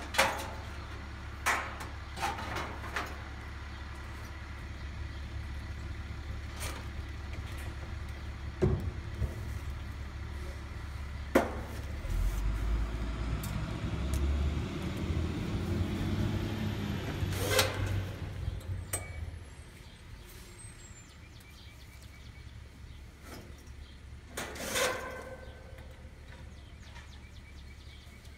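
Handling and tool noises from mounting a condenser fan motor: scattered sharp clicks and knocks over a steady low hum, with a louder uneven low rumble for several seconds in the middle.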